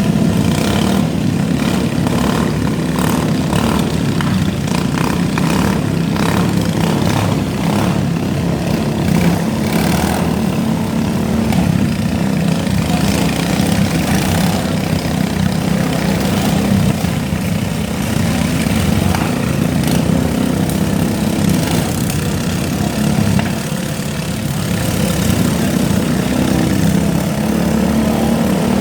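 Several small lawn mower engines running at once, with a run of short knocks and bangs through the first half of the sound.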